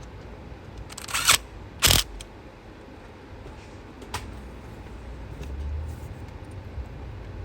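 Parts being handled and fitted in a car's engine bay: two sharp clacks about one and two seconds in, and a lighter click near four seconds, over a low background rumble.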